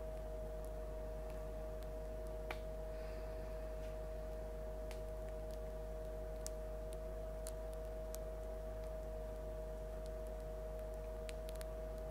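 Crust of a loaf of bread crackling as it cools after baking: sparse, irregular faint clicks, about a dozen, over a steady hum.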